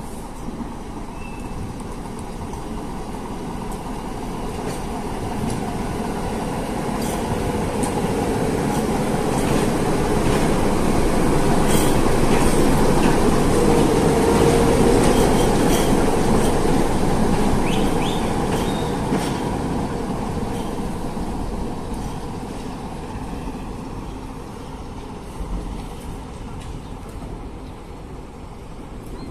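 Diesel shunting locomotive running light past at close range: its engine's steady running and the clicks of its wheels on the rails grow louder to a peak about halfway through, then fade as it moves away.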